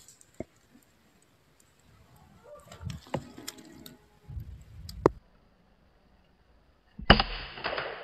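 Faint scattered clicks and light rustling, then a sudden sharp rifle shot from a scoped air rifle about seven seconds in, followed by about a second of rustling.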